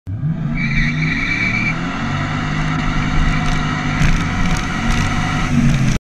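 Motor vehicle engine running while driving, its pitch rising and falling with speed, with a high whine for about a second near the start.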